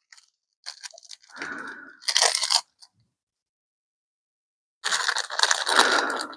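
Rustling, crinkling handling noise from hands working at the bench, in two stretches: one starting about a second in and building to a louder crackle, and another near the end.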